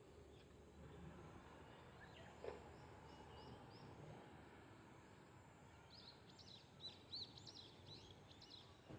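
Near silence: quiet room tone with faint high bird chirps, a short run about three seconds in and a busier twittering from about six seconds in. A light tick about two and a half seconds in.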